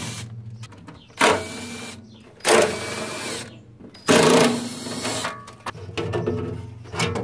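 Handheld power driver run in three short bursts of about a second each, backing out the fasteners of an Onan generator's engine cover, followed by quieter handling clatter.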